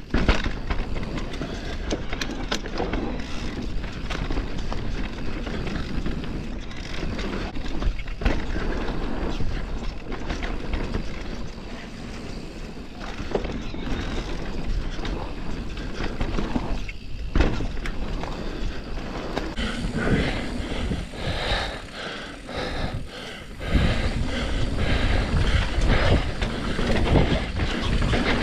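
Mountain bike rolling fast down a dirt forest trail: tyre noise over the ground with a steady clatter of small knocks and rattles from the bike, and a rush of wind on the microphone that grows louder near the end.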